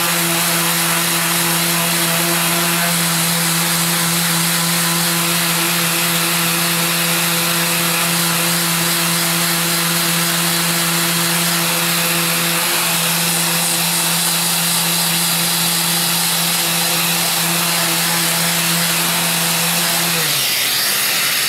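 Mirka random orbital sander running steadily with 180-grit abrasive on an acrylic (Perspex) sheet: a steady motor hum over the hiss of sanding. Near the end it is switched off and winds down.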